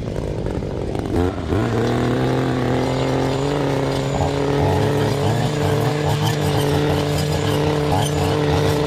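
An engine speeds up about a second in, then runs steadily at high revs through brush-clearing work.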